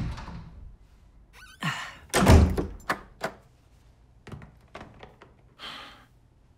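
A series of thunks and knocks: a sharp one at the start, the loudest a heavy thud a little over two seconds in, then several lighter clicks and taps.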